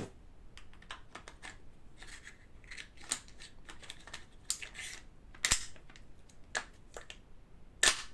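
Bolt being fitted back into a Tokyo Marui airsoft rifle: a run of small clicks and scrapes of the parts being handled, with a few sharper clicks and one louder snap near the end.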